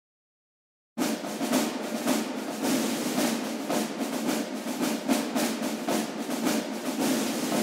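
Background music, starting about a second in, with a busy, noisy drum rhythm of about two beats a second.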